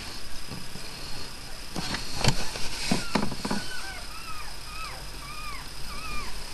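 Newborn pug puppies squeaking: short, high cries that rise and fall in pitch, about two a second, from about halfway through. They follow a few knocks and rustles of handling about two seconds in.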